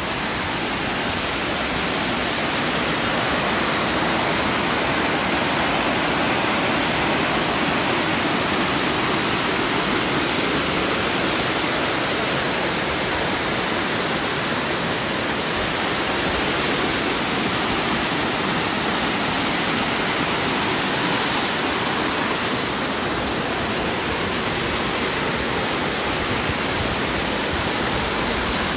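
Steady, even rush of Amicalola Falls, the waterfall's water pouring down.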